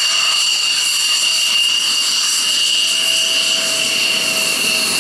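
F-16 fighter jet taxiing at low power: its engine gives a steady high-pitched whine, several even tones over a jet rush.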